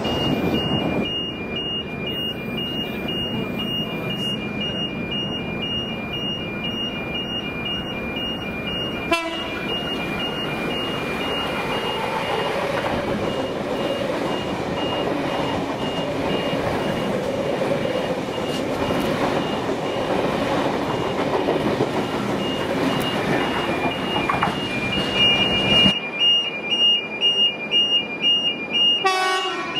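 Double-deck Intercity V set electric train running past a station platform with a steady rumble of wheels and motors. Before and after it, a pulsing two-tone electronic beep sounds about two to three times a second as other trains approach.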